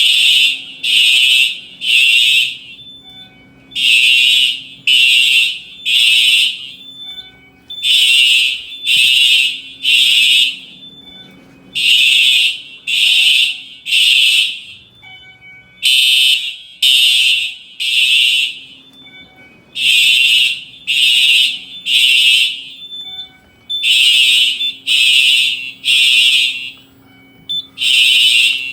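Simplex fire alarm sounding a loud, buzzy tone in the temporal-three evacuation pattern: three half-second pulses, then a pause of about a second and a half, repeating every four seconds.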